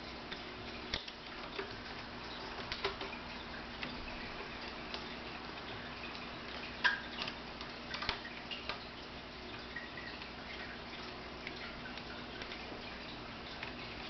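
Scattered small clicks and taps of laptop parts being handled, a few a second at most, the sharpest about seven and eight seconds in, over a steady background hiss with a faint hum.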